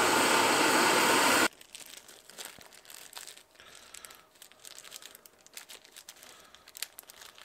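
Handheld gas torch flame hissing steadily against a seized rear brake caliper bolt, then cutting off suddenly about a second and a half in. After that, faint crinkling of a small plastic packet handled in work gloves.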